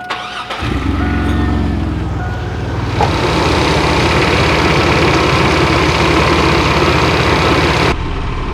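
A 2004 Chevy Blazer's engine starts about half a second in after a few chime beeps, then runs at idle through an exhaust with a leak at a broken muffler bolt. From about three seconds in, a loud steady rushing noise lies over the idle and cuts off suddenly near the end.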